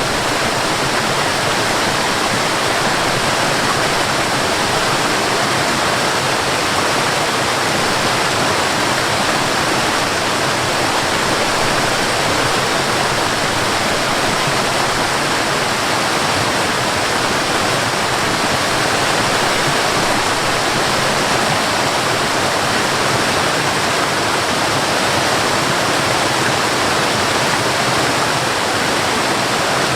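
Waterfall: falling water making a loud, steady, even rush that never lets up.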